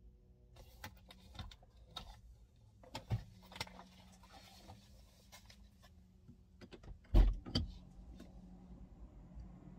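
Scattered clicks and knocks of movement inside a car cabin, then a heavy thud about seven seconds in with a second knock just after, over a low steady hum.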